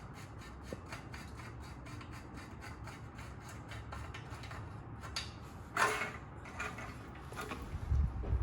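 Rhythmic hand scraping or rubbing on a part, about four strokes a second, followed by a few louder scrapes and a low knock near the end.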